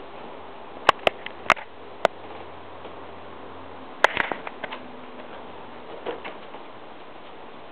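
Sharp ticks and clicks as a Siamese cat bats at and pounces on a toy spider: four about a second in, a quick cluster around four seconds, and a softer pair near six seconds.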